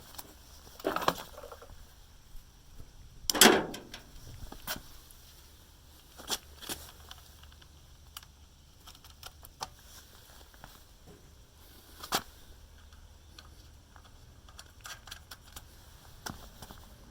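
Scattered metallic clicks and clinks of a wrench and fasteners being worked while the two 10 mm nuts holding the carburetor on a small pressure-washer engine are put back, with a louder clank about three and a half seconds in.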